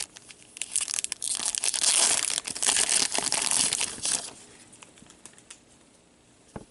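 Foil wrapper of a hockey card pack torn open and crinkled, a few seconds of dense crackling, then quieter card handling with a single click near the end.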